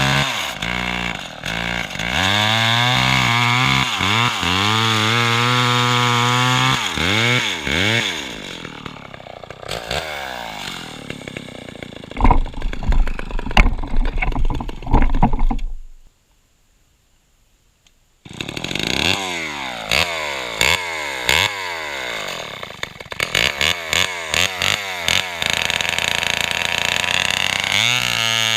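Lombard AL42 two-stroke chainsaw running and being revved up and down repeatedly. The sound breaks off into about two seconds of silence near the middle, then comes back with quick blips of the throttle.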